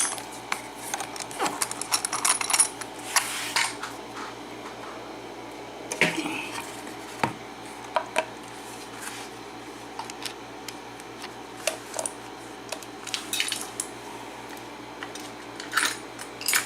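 Small metal clicks and clinks of a just-picked pin tumbler lock and its pick and tension wrench being handled, in scattered clusters of taps.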